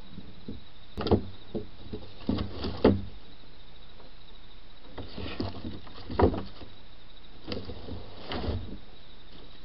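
Irregular thuds and scuffs from a black bear moving about a steel bait barrel, the loudest about three seconds in and again about six seconds in, over the steady hiss of a trail camera's microphone.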